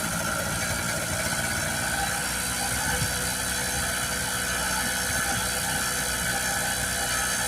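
An engine running steadily with a constant hum, holding the same pitch and level throughout.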